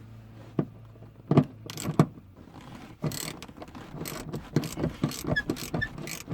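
Irregular metallic clinks, knocks and rustling as rear seatbelt hardware is handled and adjusted by hand.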